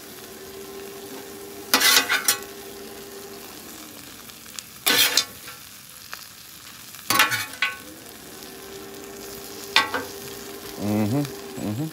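Steak, onions and peppers sizzling on a flat-top griddle. A metal spatula scrapes and clanks against the steel plate in four short bursts.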